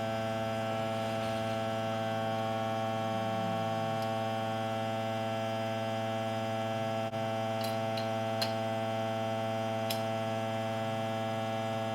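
A steady electrical hum made of a low tone and its many overtones, holding constant throughout, with a few faint clicks.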